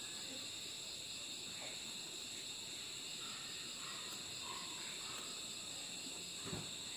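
Crickets chirring steadily, with one short soft thump near the end.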